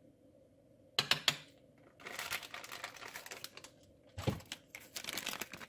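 A plastic measuring spoon tapping against a cooking pot, with a plastic spice bag rustling, as chili powder is spooned into a pot of chili. A few sharp taps come about a second in, then a stretch of rustling, then more taps and a dull knock near the end.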